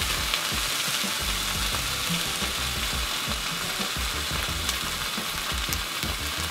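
Eggs frying in a griddle pan on a portable gas camping stove, giving a steady sizzle.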